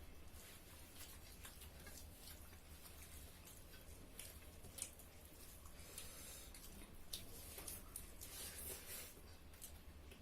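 Faint eating sounds: soft chewing with scattered small clicks and smacks, busier in the second half, over a low steady hum.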